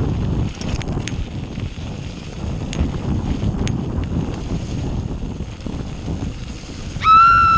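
Mountain bike rolling fast down a gravel track: wind rumbling on the microphone, tyre noise and occasional sharp clicks and rattles from the bike. Near the end a loud high-pitched squeal starts suddenly and holds, sinking slightly in pitch.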